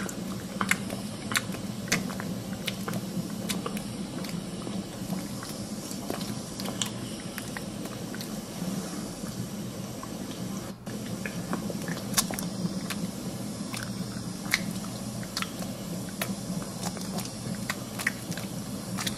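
A domestic cat licking its fur up close: irregular wet smacking clicks of the tongue, over a steady low hum.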